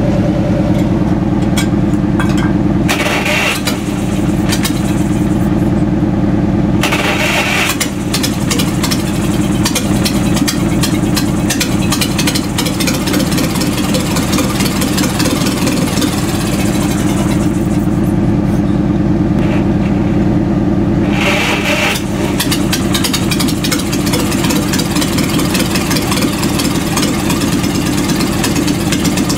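Wisconsin THD 16-horsepower two-cylinder air-cooled engine running steadily after a cold start, with short surges of noise about three, seven and twenty-one seconds in. It has a burnt exhaust valve, and the owner expects it to fire on only one cylinder.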